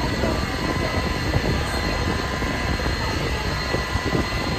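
A 60 kW induction heating machine running under load while it heats metal bars red hot in its coil: a steady machine drone with a few thin, steady high tones over it.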